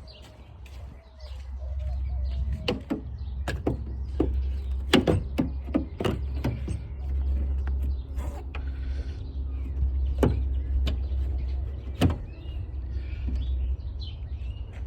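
Scattered sharp clicks and knocks of hands and a tool working at a car's trunk lid and its lift-support fittings, over a low steady rumble.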